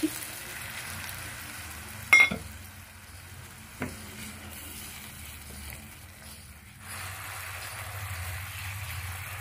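Spice and tomato paste sizzling in a frying pan as water is added and the masala is stirred with a silicone spatula. A sharp ringing clink sounds about two seconds in, and a softer knock comes a couple of seconds later.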